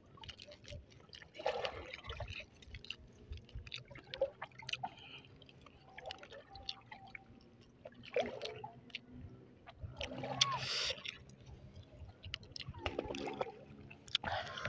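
Close-miked eating sounds: soft wet squishes and scattered small clicks as a breadcrumb-fried balut egg is pulled apart, cut with a fork and bitten into, with lip smacks.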